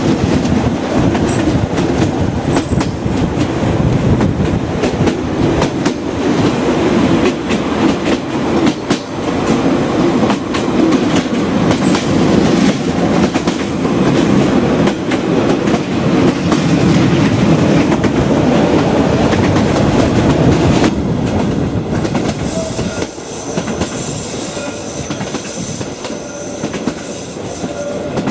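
Reunification Express train running on the rails, its wheels clattering over the track with a steady rumble and frequent clicks. About 21 seconds in the noise eases, and faint thin squeal-like tones come through.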